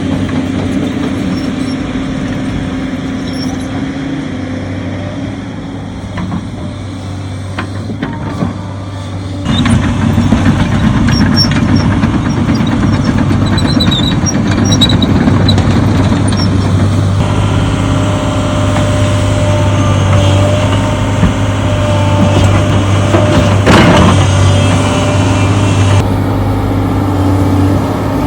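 An engine running steadily with a low hum. The sound jumps abruptly about a third of the way in, again past halfway and near the end.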